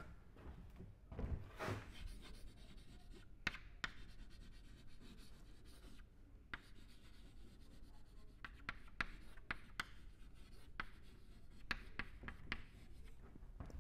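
Chalk writing on a blackboard: faint scratching strokes and sharp little taps at an uneven pace as words are written.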